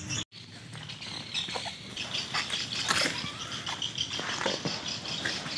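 Outdoor ambience of faint bird chirping, with scattered soft footfalls and rustles on grass.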